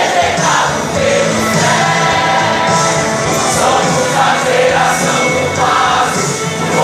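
Live gospel worship music: a choir of voices singing over a band with steady drums and cymbals.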